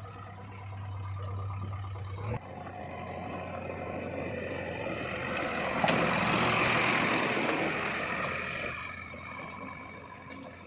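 Heavy machine engine running, with an abrupt change about two seconds in, then a rushing noise that swells to its loudest in the middle, with a sharp click, and fades away.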